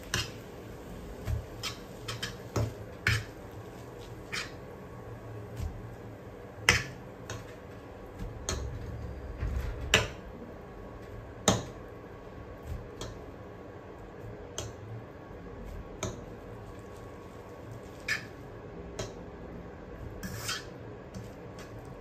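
A utensil clicking and scraping irregularly against a nonstick frying pan as fried instant noodles and scrambled egg are stirred and tossed, with the sharpest knocks about seven and ten seconds in.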